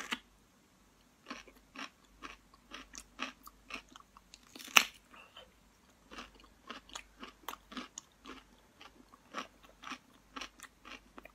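Close-up mouth sounds of a person biting and chewing food: a string of short separate chews, a few a second, with one louder bite about five seconds in.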